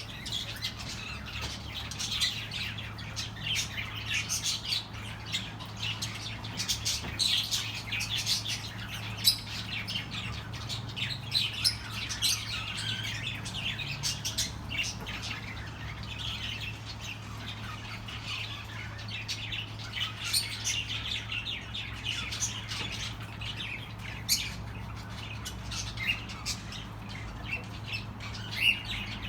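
Budgerigars chattering: a steady stream of overlapping short chirps and squawks, with no pauses.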